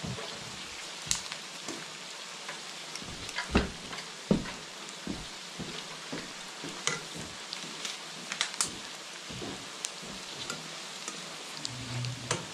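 Wood ear mushrooms sizzling in a hot wok, a steady hiss. A wooden spatula scrapes and knocks against the pan many times, most loudly about three and a half and four and a half seconds in.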